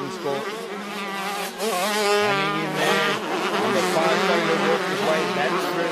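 Several 125cc two-stroke motocross bike engines running at high revs, their pitch rising and falling with the throttle as the bikes race through a corner.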